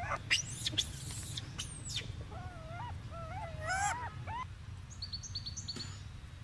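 Baby macaque crying: high squeals near the start, then a string of wavering, whimpering calls, and a few short high peeps about five seconds in.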